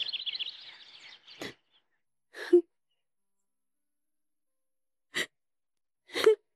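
A woman's short, sharp breaths, four in all with silence between them, as she is on the verge of tears.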